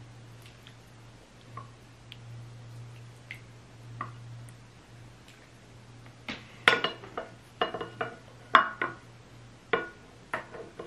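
A plastic serving ladle knocking and clinking against a glass serving dish and plates while food is dished out: faint scattered ticks at first, then from about six seconds in a quick run of sharp clinks with a short glassy ring. A faint low hum sits underneath.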